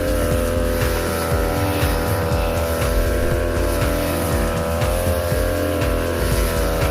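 Petrol grass cutter with a 45 cm blade running at a steady high speed while cutting grass, its engine giving a constant high drone.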